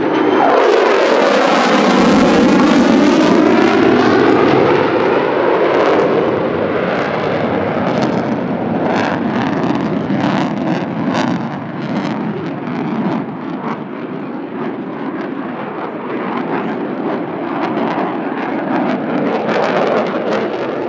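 Lockheed Martin F-35A Lightning II's single Pratt & Whitney F135 engine in afterburner on a display pass. A loud jet rush with falling sweeps peaks in the first few seconds as the jet goes by, then gives way to a harsh crackle that fades a little and swells again near the end.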